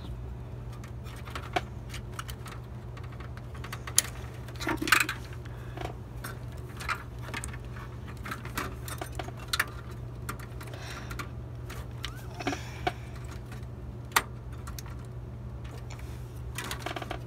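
Internal power and ribbon cables being pulled out of an HP Pavilion desktop PC case: scattered small clicks, rattles and knocks of plastic Molex connectors and sheet metal, the loudest about four, five and fourteen seconds in, over a steady low hum.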